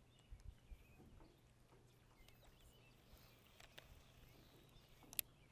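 Near silence with faint outdoor background, broken by a few soft handling knocks in the first second and one sharp click near the end, from fingers working a hook and soft-plastic stick bait.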